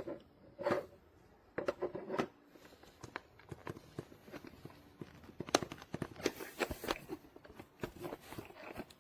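Plastic parts of a toy vacuum cleaner being handled and fitted together: scattered clicks, taps and rubbing.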